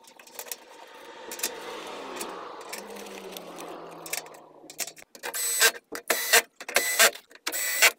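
Cordless drill-driver running in short half-second bursts, several in a row from about five seconds in, driving the Torx bolts back into the lid of an electric-car battery pack casing; before that, faint clicks and handling of the bolts and lid.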